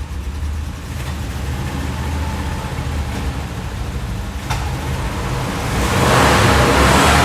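1959 Buick's nailhead V8 running at a steady idle with a low rumble. A loud rushing noise swells near the end.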